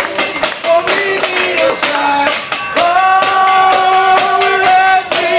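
Upbeat pop song with a singer over a steady beat, the singer holding one long note near the middle.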